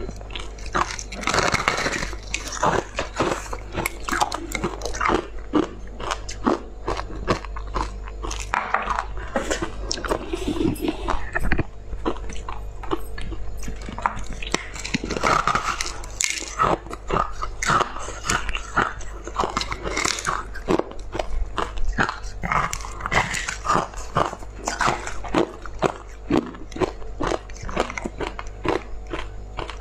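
Close-miked biting and chewing of a block of purple crushed ice: dense, irregular crunching and crackling as the frozen crystals break between the teeth. A steady low hum runs underneath.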